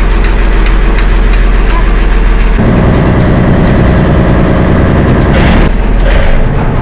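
Lifeboat's diesel engine running steadily at idle, a loud low hum mixed with rushing noise. The sound changes abruptly about two and a half seconds in, and there is a brief louder rush near the end.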